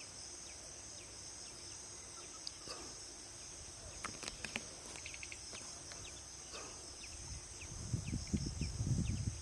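A steady, high-pitched insect chorus of crickets or cicadas, with scattered short chirps from birds over it. Near the end a low rumbling noise builds up and becomes the loudest sound.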